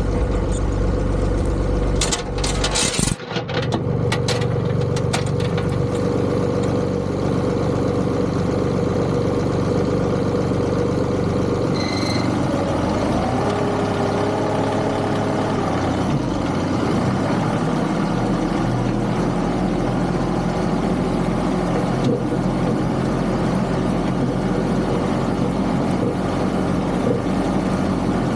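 John Deere 2038R compact tractor's diesel engine running steadily at idle, with a few sharp knocks about two to three seconds in and a brief shift in the engine note around the middle.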